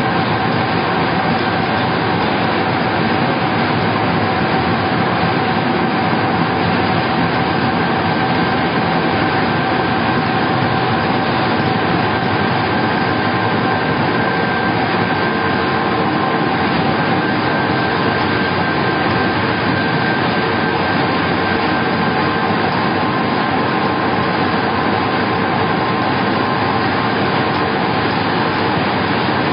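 LS-550 vertical wood pellet mill and its belt conveyor running under load while the mill presses sawdust into pellets. The result is a loud, steady machine noise with a few constant whining tones over it.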